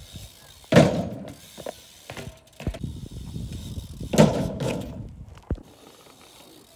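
BMX bike hopping up onto a low box ledge with a loud thud about a second in, rolling along it with a few light clicks and knocks, then dropping back onto the asphalt with a second loud thud about four seconds in.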